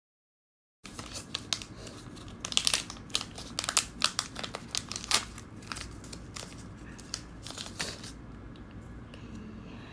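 Plastic packaging of a COVID rapid antigen test kit crinkling as it is handled, a run of sharp crackles that starts suddenly about a second in and dies down about eight seconds in.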